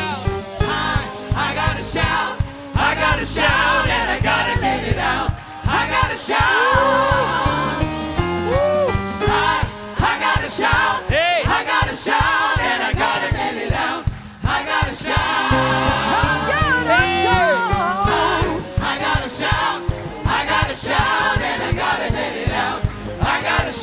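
Gospel worship music: a choir singing over a band with a steady beat.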